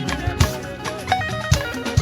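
Upbeat band music: guitar lines over a steady drum beat.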